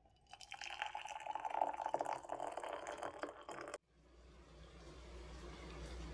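Water running into a container for about three seconds, then cut off abruptly, followed by a steady low hum.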